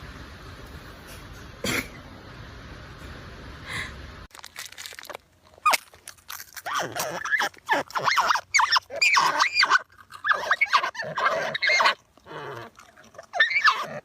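Steady background hiss with a single sharp click, then after a cut a pet animal calling over and over in short calls that bend up and down in pitch.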